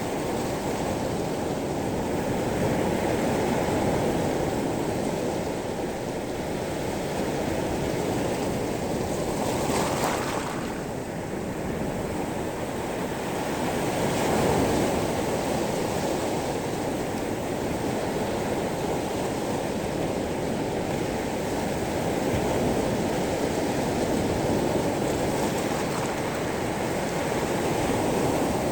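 Sea waves washing onto a pebble beach: a continuous rushing surf that swells and eases every few seconds as each wave comes in and draws back.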